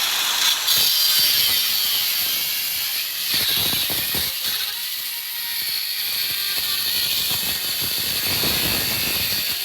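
Angle grinder with an abrasive cut-off wheel cutting into an ATM's steel casing: a loud, steady, high-pitched grinding screech of the wheel biting into the metal.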